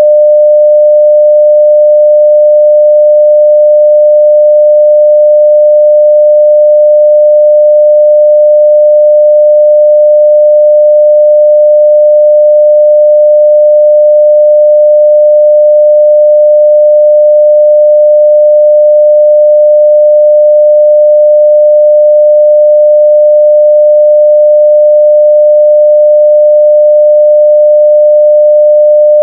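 A steady 600 Hz sine-wave test tone at full level, one pure unchanging pitch.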